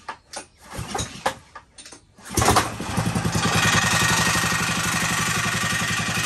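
Small gas pressure-washer engine, rebuilt as a mud-motor drive, being started: a few short knocks, then it catches about two and a half seconds in with a loud burst and settles into steady running, spinning a boat propeller on a long shaft.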